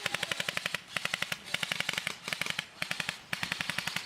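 Airsoft guns firing on full auto: about five rapid bursts in a row of sharp, evenly spaced shots with short pauses between them.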